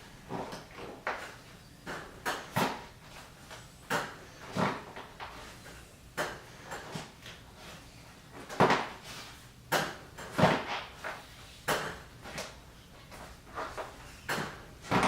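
A deflated tubeless mountain bike tyre bead being pushed off its seat by hand and worked into the rim's centre channel: a string of short, sharp, irregularly spaced sounds of rubber on the rim.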